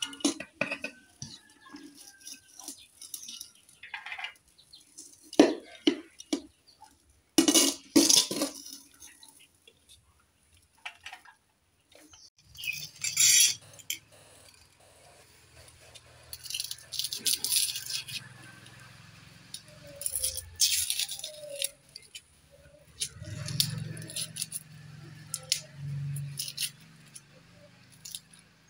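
A metal spatula scraping and clinking against a steel wok and small steel bowls as curry is served out. It makes irregular metallic clinks and scrapes, several of them loud and sharp.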